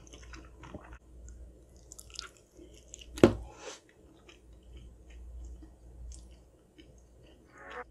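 Close-miked chewing of a mouthful of macaroni and cheese: soft, wet mouth sounds and lip smacks, with one sharper click about three seconds in.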